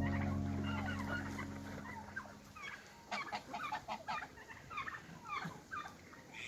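Background music fading out over the first couple of seconds, with domestic fowl clucking and calling in many short, quick notes, thickest about three to four seconds in.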